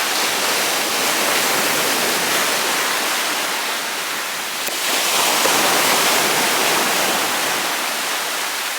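Rushing water at the shore, a loud steady hiss that eases about four and a half seconds in and then swells again.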